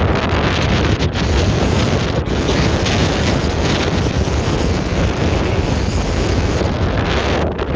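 Strong wind buffeting the microphone, a loud steady rush with no break.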